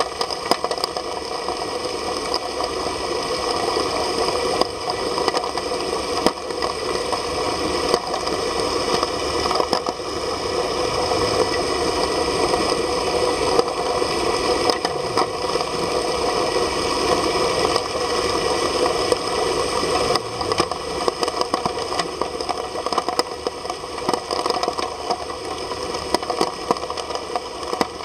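Dragflow submersible agitator dredge pump running underwater while pumping slurry, heard through the water: a steady mechanical drone with several held tones and a constant stream of small clicks and crackles.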